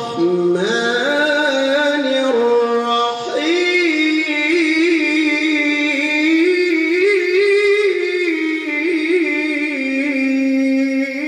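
A man's voice reciting the Quran in the melodic tilawah style: long held notes ornamented with quick wavering trills, climbing to a higher, brighter pitch about three seconds in.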